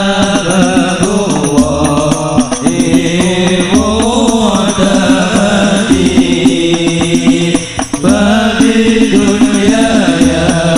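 A man singing a sholawat, an Arabic devotional song, into a microphone in long, wavering phrases, over instrumental backing with steady low notes that change every couple of seconds.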